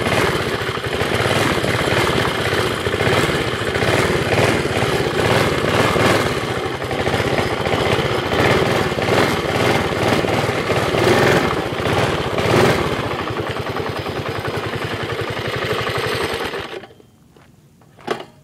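5 hp single-cylinder minibike engine running fairly loud through a homemade galvanized-pipe exhaust with a flat washer as its baffle. Its speed rises and falls, then it settles to a steadier, lower note and shuts off with a couple of seconds to go. A single click follows near the end.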